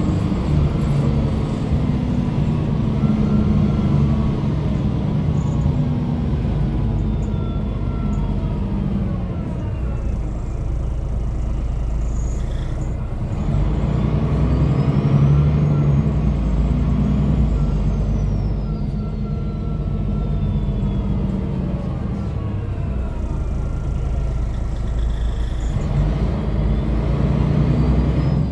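MAN NG313 articulated city bus heard from inside the passenger cabin: its MAN D2866 diesel straight-six and ZF 5HP-592 five-speed automatic gearbox running under way, with a steady rumble of engine and road noise. The engine pitch rises and falls several times as the bus speeds up and eases off through gear changes.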